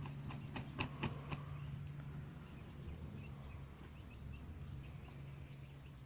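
Parrot-beak Aseel rooster beating its wings, a quick run of flaps in the first second and a half, over a steady low hum.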